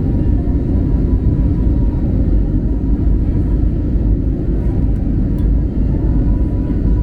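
Steady low rumble inside the cabin of an Airbus A320neo climbing out shortly after takeoff, from its jet engines and the airflow over the fuselage, with a faint steady hum above it.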